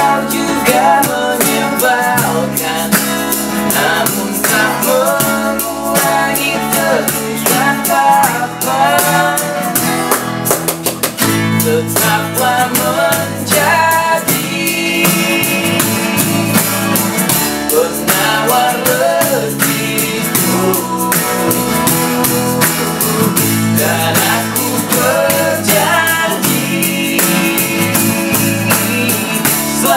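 A band playing live and unplugged: two acoustic guitars strummed, an electric bass guitar and an egg shaker keeping time under a male lead voice singing a pop ballad in Indonesian.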